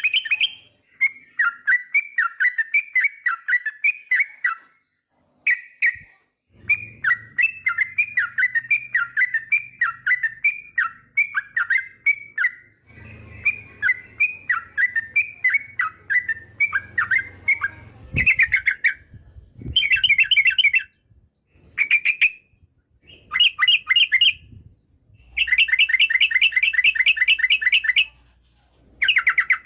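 Yellow-vented bulbul (trucukan) singing: runs of quick chirping notes with short pauses between them, turning into louder, denser chattering bursts in the second half.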